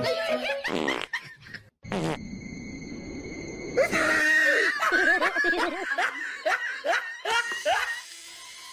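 A person laughing hard in a run of quick, high-pitched bursts, loudest from about four seconds in until near the end.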